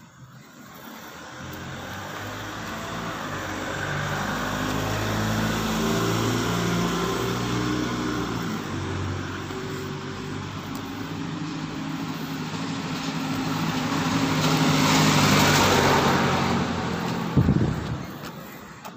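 A road vehicle draws near and passes close by: its engine note steps up and down, and tyre and road noise grows to its loudest about fifteen seconds in, then fades. A sharp knock comes shortly before the end.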